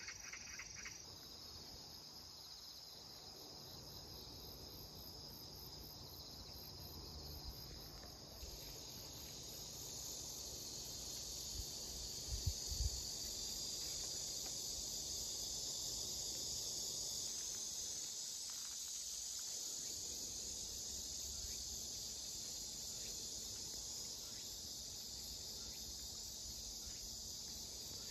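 Steady high-pitched chorus of insects such as crickets trilling, with another insect's fast pulsing stopping about a second in. A few brief low bumps about halfway through.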